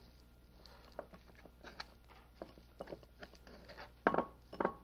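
A spoon scraping and clicking against a sieve as lobster tomalley is worked through it, with two louder clanks near the end, the first ringing briefly.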